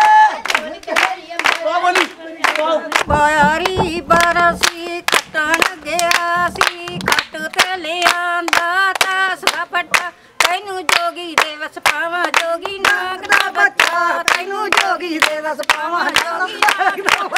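Several voices singing a song together over steady rhythmic hand-clapping, about three claps a second.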